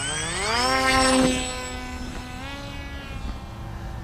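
An FPV RC plane's electric motor and propeller spinning up for launch. The whine rises steeply in pitch over the first second and is loudest just after, then settles into a steadier drone as the plane climbs away. A second short rise in pitch comes about halfway through.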